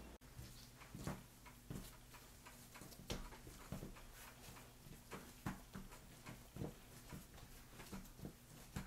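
Soft, irregular pats and taps of hands pressing and rolling bread dough on a silicone pastry mat, about one or two a second.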